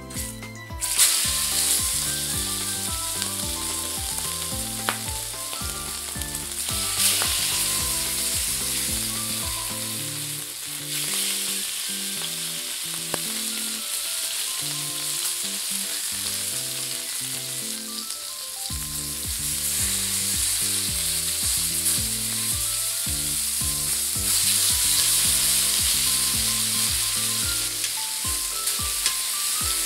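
Marbled beef steaks searing in hot oil in a skillet: a loud sizzle starts about a second in as the meat goes into the pan and carries on, growing louder later on. Background music plays underneath.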